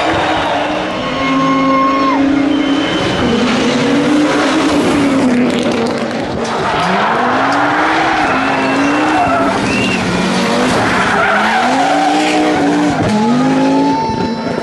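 Audi Quattro rally car's turbocharged five-cylinder engine being driven hard, its revs climbing and dropping again and again through corners, with tyres skidding on tarmac.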